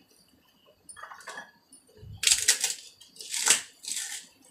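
Crisp fried panipuri papdi being crushed by hand: faint crackles about a second in, then three louder bursts of crunching and crackling in the second half.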